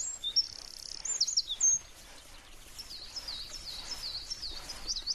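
Small songbirds singing: a fast high trill and quick chirps, a short lull about two seconds in, then a run of repeated high dipping notes.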